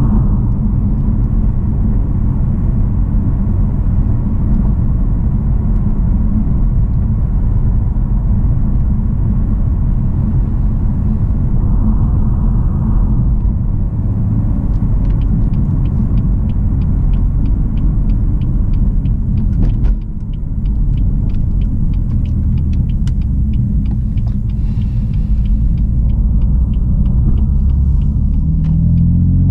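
BMW M3 F80's twin-turbo straight-six engine running at a steady, easy cruise: a low, even engine drone. About two-thirds of the way through the level dips briefly, a fast, regular ticking runs for several seconds in the middle, and near the end the engine note rises as the car accelerates.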